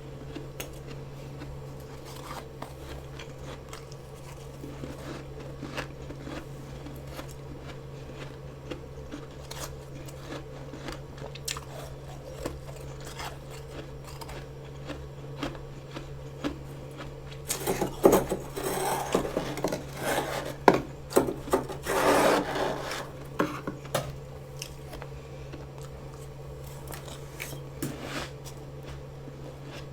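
Freezer frost being scraped and crunched, with scattered small clicks and taps, then several seconds of loud, dense crunching and scraping starting about 18 seconds in. A steady low hum runs underneath.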